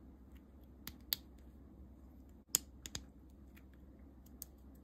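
3D-printed plastic ratchet-joint pieces clicking as they are pressed and snapped together by hand: a series of sharp, irregular clicks, loudest about a second in and halfway through.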